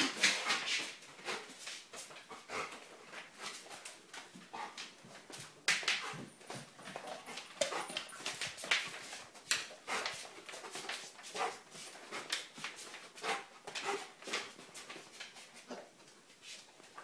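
Bernese mountain dog whimpering, with many short, irregular clicks and knocks throughout.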